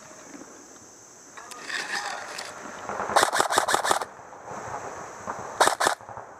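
Airsoft rifle firing a quick string of about six shots, with a short burst of two or three more shots near the end.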